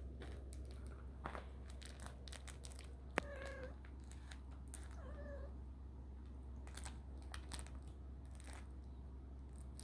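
Young kitten mewing twice, two short faint cries a second and a half apart, among scattered light clicks and rustles.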